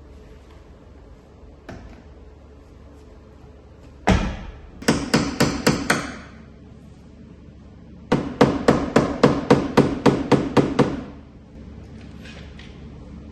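A body hammer striking a car's sheet-metal body panel, panel-beating a dent. There is one heavy blow, then a quick run of about six ringing strikes, and after a short pause a steady run of about a dozen strikes, roughly four a second.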